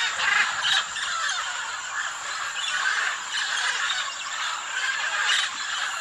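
A flock of macaws calling together at a clay lick: dense, overlapping squawks and chatter that never stop, with a thin steady high tone underneath.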